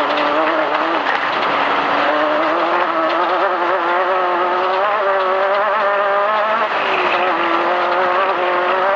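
Off-road race vehicle's engine running hard at speed on a dirt track. Its pitch wavers, dropping about a second in and again near seven seconds before climbing back.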